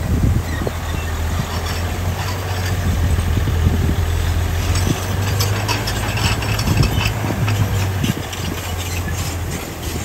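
D60 crawler bulldozer's diesel engine running with a steady low drone, with scattered clanks and rattles from its tracks and the stone as it moves.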